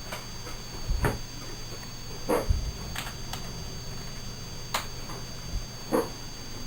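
Steady electrical hum with a constant high-pitched whine over it: the unwanted background noise from speakers fed by a Focusrite Scarlett 2i2 USB audio interface, noise that changes with which computer it is plugged into. About five short clicks and knocks sound over it.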